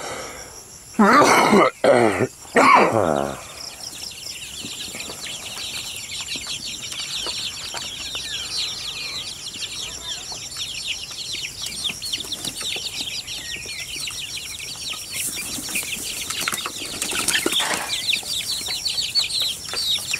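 A flock of young chickens calling around their feeder: a few loud squawks in the first three seconds, then a continuous busy chatter of high cheeps and clucks.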